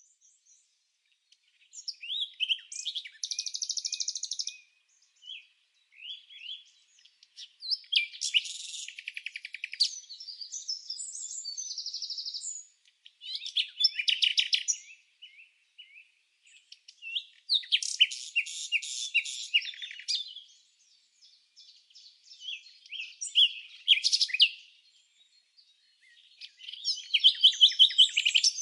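Birds chirping and singing in short bursts of quick, high-pitched chirps and trills, each phrase lasting a second or two, with brief silent gaps between phrases.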